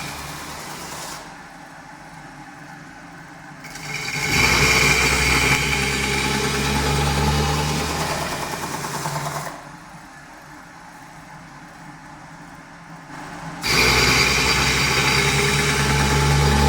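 CNC metal spinning machine running as it works a steel sheet, with a steady high whine over a low hum. Twice the whine drops away for about four seconds, leaving a quieter hum, before the full sound returns.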